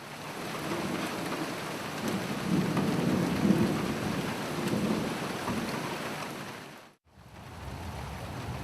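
Thunderstorm: steady rain with a long rolling rumble of thunder that builds over the first few seconds and fades away. About seven seconds in the sound cuts off abruptly, then the rain carries on.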